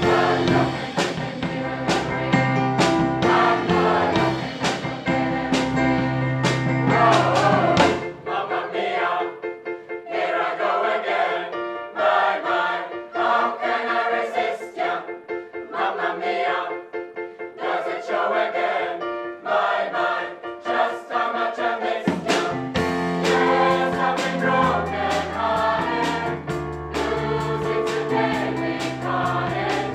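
Mixed choir singing a pop song in parts, with accompaniment whose bass and beat drop out about 8 seconds in, leaving the voices nearly alone, and come back about 22 seconds in.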